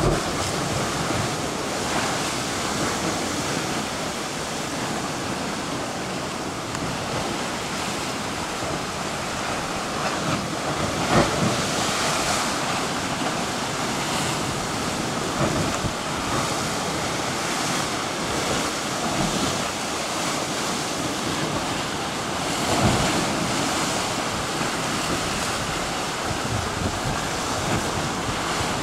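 Heavy ocean surf churning against a rock ledge, with seawater pouring off the rock back into the swirl. A steady rushing wash with a few louder surges, the strongest about 11 seconds in and again near 23 seconds.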